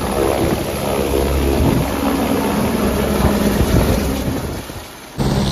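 Loud vehicle engine running under a heavy, uneven rumble; it fades briefly and then cuts off abruptly about five seconds in.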